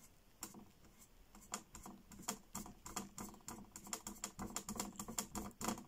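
Faint, quick series of light taps and scratches, several a second: an acrylic paintbrush dabbing and stroking against the painting surface.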